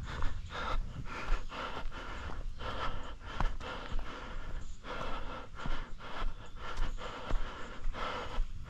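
A trail runner's heavy breathing, quick, rhythmic panting in and out, with his footfalls on the trail underneath.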